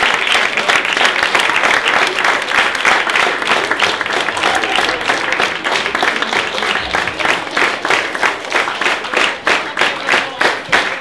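Audience applauding. The clapping falls into a steady rhythm of about three claps a second near the end.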